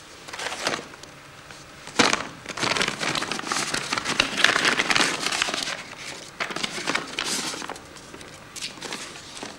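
Paper rustling and crinkling in irregular bursts as a brown paper envelope and loose paper are handled. A sharp crackle about two seconds in opens the longest, loudest stretch, with shorter rustles later on.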